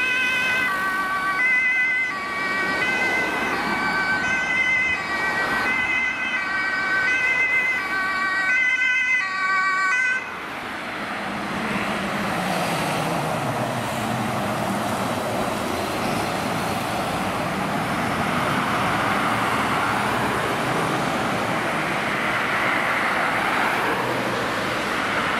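Two-tone German fire-engine siren (Martinshorn), high and low notes alternating, with two sirens overlapping; it cuts off abruptly about ten seconds in. The rest is the engine and tyre noise of a fire truck driving past in traffic.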